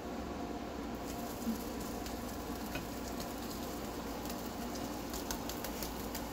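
Eggs sizzling steadily in a small cast-iron skillet while a silicone spatula pushes and turns them, with light crackles and taps that come thicker in the second half.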